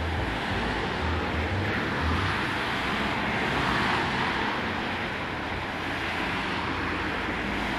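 Road traffic: cars passing along a road, a steady hiss of tyres and engines that swells in the middle as cars go by.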